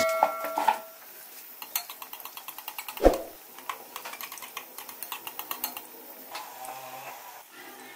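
Chicken potato toffees deep-frying in hot oil in an aluminium karahi: a fast, irregular crackle of popping oil, with one dull knock about three seconds in. A bell chime from the subscribe-button animation fades out in the first moment.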